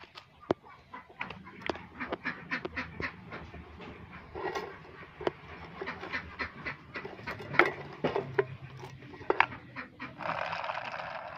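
Hard plastic toys being handled, clicking and knocking irregularly, with a scraping rustle lasting about a second near the end. Animal calls sound faintly in the background.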